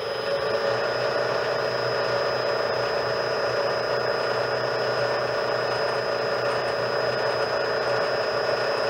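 Bridgeport milling machine running, its spindle motor and head gearing coming up to speed and then holding a steady, loud hum with a thin high whine.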